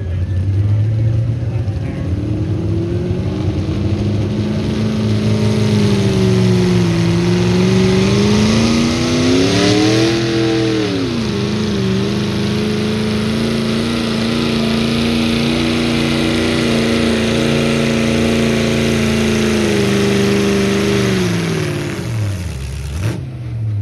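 Tractor engine running hard under full load as it pulls a weight sled, its pitch climbing about ten seconds in, holding steady, then dropping away near the end as the pull finishes.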